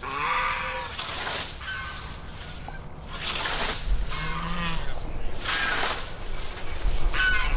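A hand scythe swishing through Bahia grass in repeated cutting strokes, roughly one every second or so.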